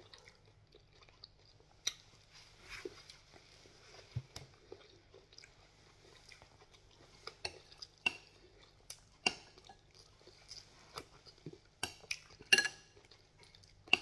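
Mealtime sounds: chewing, with scattered sharp clinks and taps of utensils against a glass bowl and plate, the loudest about twelve and a half seconds in.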